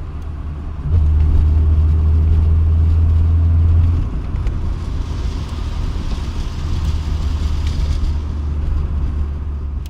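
Car engine running, brought up to higher revs from about a second in, held for about three seconds, then dropping back to a lower steady run. The car has started making a squealing noise from the engine bay that the owner can't place.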